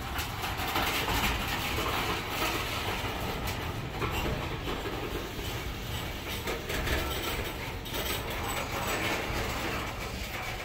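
Freight train of waste-container cars rolling past on the track: a steady rumble and rattle of steel wheels on the rails, with frequent clicks and clanks.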